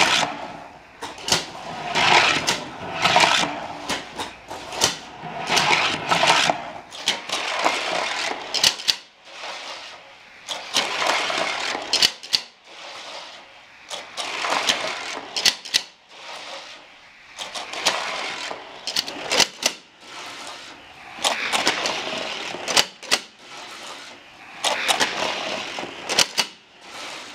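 Two die-cast Hot Wheels cars race round and round an orange plastic track. Every two seconds or so they whir through a motorized Rod Runner booster and then rumble around the oval, with sharp clicks along the way.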